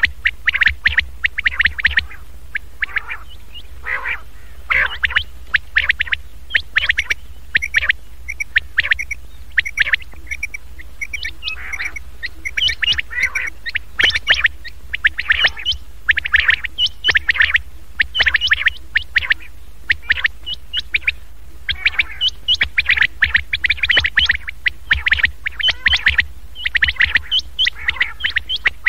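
Common quail calls played as a hunters' lure recording to draw quail in for netting: rapid clusters of short, sharp, scratchy notes repeating without pause, over a steady low hum.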